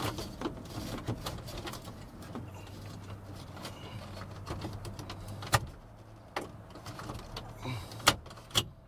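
Clicks and knocks of hands and tools working under a pickup's dash to free the headlight switch, with a few sharp plastic clicks about five and a half and eight seconds in, over a low steady hum.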